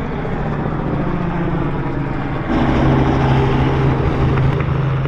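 A vehicle engine running steadily, growing louder about two and a half seconds in, with a steady low hum.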